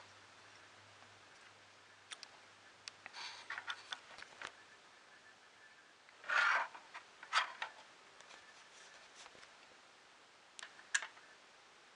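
Small clicks and taps of plastic printer parts and a cable being handled and fitted together, with a louder brief scraping rustle about six seconds in.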